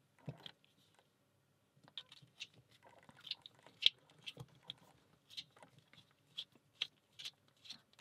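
Small flathead screwdriver turning a screw in the end of a brass Fichet Bauche safe lock: faint, irregular light metal clicks and scrapes as the screw is backed out.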